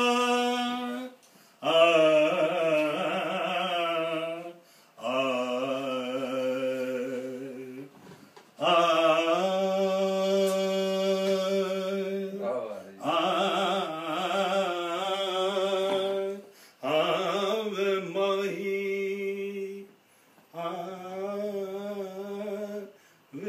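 A voice singing in a chant-like style: long held, wavering notes in about seven phrases of roughly three seconds each, with short breaks between them.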